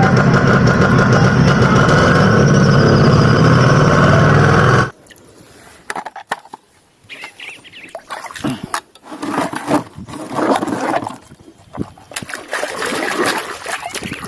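Water rushing out in a loud, steady stream for about five seconds, which cuts off suddenly, then irregular splashing and dripping while a muddy toy is rinsed clean.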